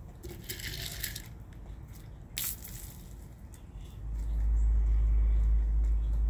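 Sandhill cranes' bills tapping on concrete as they peck scattered seed: light clicks, with a short hissing rustle near the start and one sharper click midway. From about two-thirds of the way in, a deep low rumble rises and dominates.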